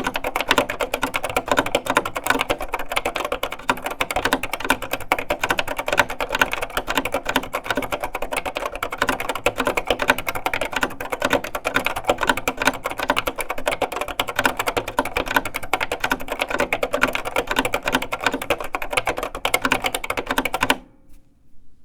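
Fast, continuous typing on a vintage Hewlett Packard 2624B terminal keyboard with Hi-Tek High Profile linear switches, a dense clatter of keystrokes that stops abruptly near the end.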